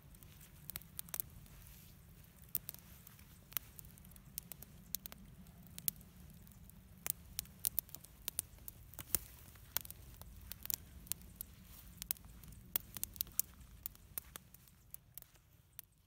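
Small campfire of twigs and cardboard crackling, with sharp, irregular pops over a low steady rumble, fading out at the very end.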